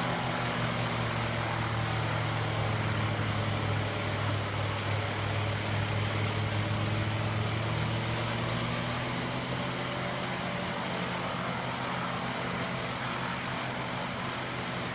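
Morbark Model 4036 drum chipper with its CAT engine running steadily at a constant pitch, with an even rushing noise on top as small pine branches are fed through and chipped.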